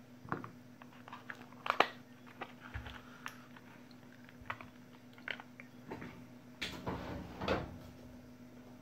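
Black plastic casing of a laptop battery pack handled and worked apart by hand: scattered faint plastic clicks and creaks. There is a sharper click about two seconds in and a few louder knocks near the end.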